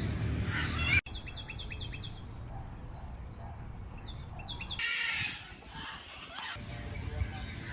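A caged bird calling: two runs of quick, high chirps, each sliding downward, about four a second, followed by a brief burst of chattering calls.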